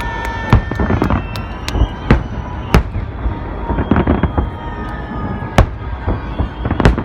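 Festive fireworks salute: shells bursting in a rapid, irregular series of loud bangs, several a second, over a continuous rumble.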